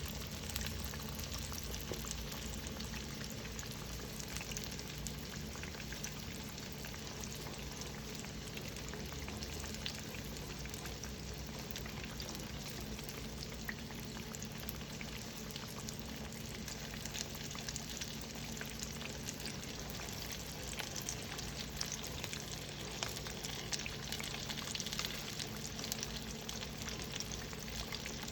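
Fish frying in hot oil: a steady sizzle, thick with small crackles and pops.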